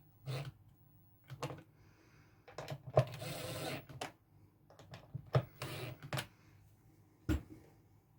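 Parts and tools being handled at a workbench: a string of sharp clicks and knocks, with two short scraping rustles about three and five and a half seconds in and a heavier knock near the end.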